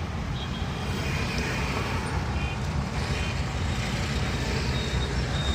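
Steady low road and engine rumble of a vehicle being driven, with a few faint short high tones in the first half.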